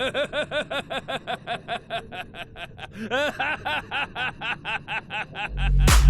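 A long snickering laugh in quick short pulses, about six a second, with a brief break about three seconds in, as loud music with a heavy bass comes in near the end.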